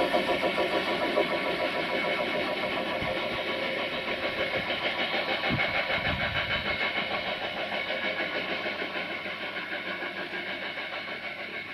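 Container wagons of an intermodal freight train rolling past on the rails, their wheels making a fast rhythmic rattle that fades steadily as the end of the train moves away.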